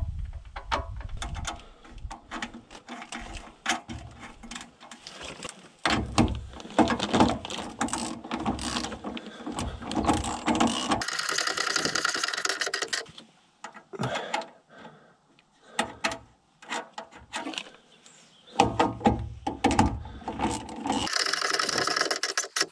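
Ratchet wrench clicking as a nut is run down on a bolt of a galvanized steel solar panel bracket, with scattered clinks of metal. There are two spells of fast ratcheting, one about halfway through and one near the end.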